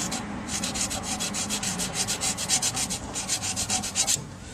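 A screwdriver tip scratching an alignment mark into the metal of a tailshaft yoke, in quick back-and-forth scraping strokes about five a second, stopping shortly before the end. The mark lets the yoke go back on in the same plane.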